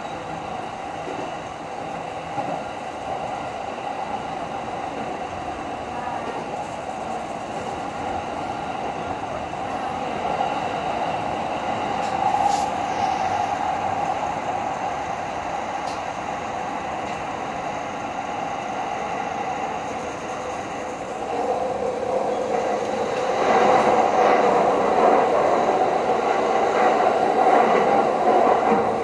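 JR Saikyo Line electric commuter train running on the track, heard from inside the leading car: a steady rumble of wheels on rail. About three-quarters of the way through it grows louder, with more clatter.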